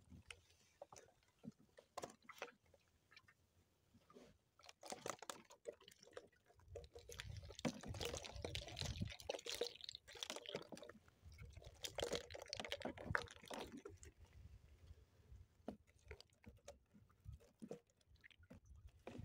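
A cylindrical mesh fish trap being handled and emptied: water drips and splashes from it while its hoops and netting clatter in irregular clicks and knocks. There are two busier stretches of splashing and rattling, about seven and about twelve seconds in.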